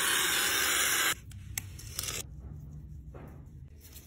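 Aerosol spray can hissing in one loud burst of about a second, then a short second burst near two seconds in. After that comes the softer rubbing of a foam roller rolling paint onto a wood panel.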